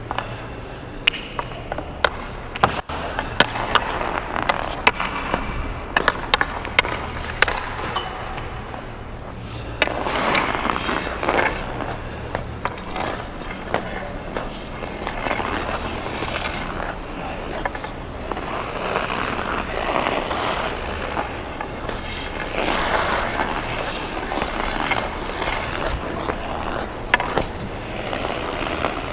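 Ice hockey skate blades on Marsblade holders cutting and scraping across rink ice in hissing carves and strides, with a run of sharp clicks in the first several seconds.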